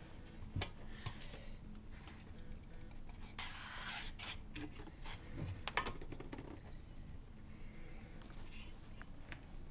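Handling noise from the dismantled amplifier and its parts: scraping, rubbing and a few sharp clicks as things are moved about, with the loudest scrape a few seconds in.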